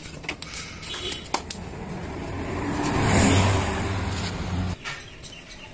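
Hero Honda CBZ's single-cylinder four-stroke engine running, revved up once about three seconds in, then cutting off abruptly just before five seconds. It is the test run after the crack by the oil drain plug was sealed with glue and the oil refilled.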